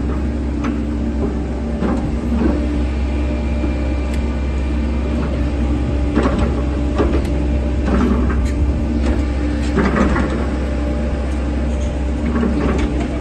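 Wheel excavator's diesel engine running steadily with a low rumble. Short knocks and clanks come now and then, thickest toward the middle.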